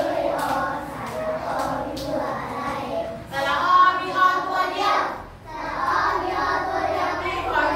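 A class of young children singing together in unison.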